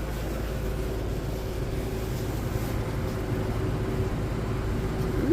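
Steady background hum of a large indoor shop: a constant low rumble with a faint steady tone over it.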